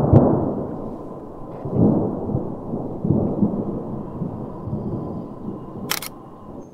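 Thunder: a loud rolling rumble that surges again about two and three seconds in, then slowly dies away, with a sharp crack near the end.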